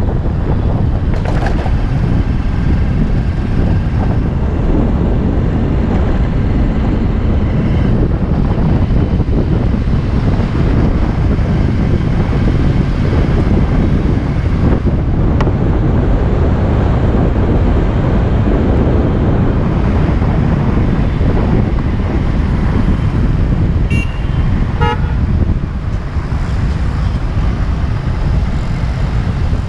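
Steady low rush of wind and road noise from a motorcycle riding through traffic. Near the end a vehicle horn toots twice, about a second apart.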